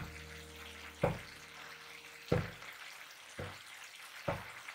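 Chopped vegetables frying in a metal pan with a low sizzle, broken by five short, sharp knocks, roughly one a second, of a steel ladle against the pan.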